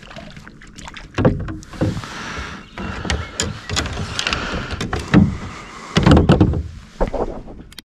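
Irregular knocks, clicks and thumps of a person shifting about and handling gear in a plastic kayak, with the hull bumping and creaking. The sound cuts off suddenly near the end.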